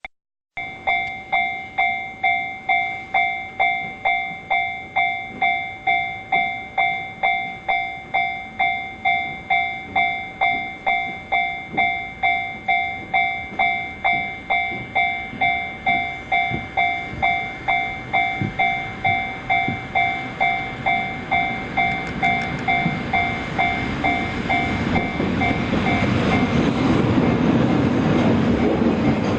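Level-crossing warning bell ringing steadily, about two strikes a second, as a freight train hauled by an EF200 electric locomotive approaches slowly. The train's rumble grows louder over the last several seconds, and the bell stops near the end.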